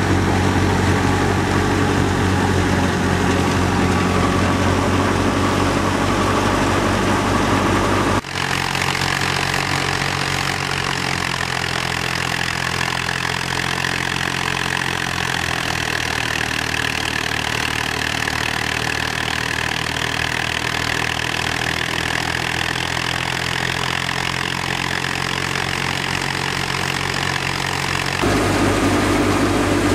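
Tractor diesel engine running steadily under load while driving a wheat thresher, with the thresher's drum and fan whirring. The sound changes abruptly about eight seconds in, and again near the end.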